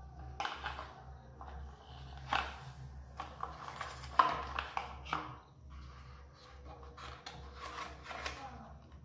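Plastic toy backhoe loader handled and turned over by hands: irregular rubbing and scraping of plastic with scattered clicks, the loudest a sharp click about four seconds in.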